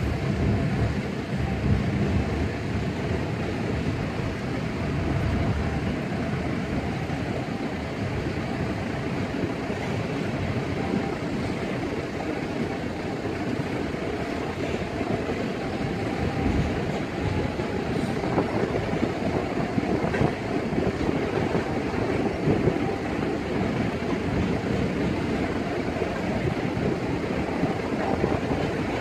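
Freight train cars rolling steadily through a grade crossing: a continuous rumble of steel wheels on the rails with occasional knocks, as tank cars give way to a boxcar and open hopper cars.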